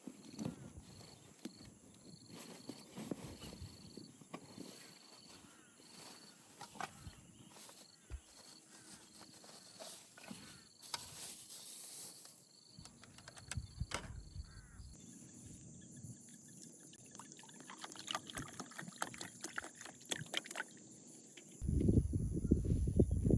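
Insects chirping outdoors: a short high chirp repeating about twice a second over a steady high hum, with scattered small clicks and knocks. Near the end a much louder low rumbling noise starts.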